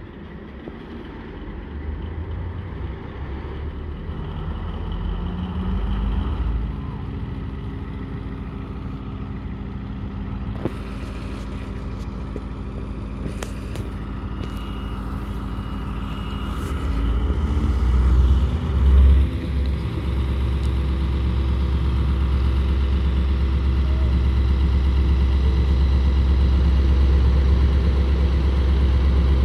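Class 73 electro-diesel locomotive starting its diesel engine. A steady machinery hum builds over the first several seconds, with short clicks and hisses in the middle. About 18 seconds in there is a loud surge, then the engine settles into a steady, deep idle.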